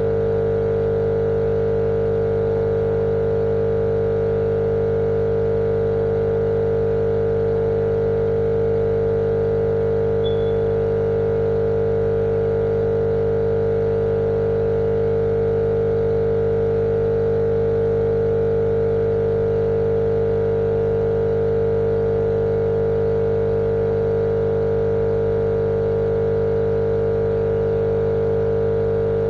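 A steady, unchanging machine-like hum with one strong mid-pitched tone over a low drone, looped as sleep noise for babies.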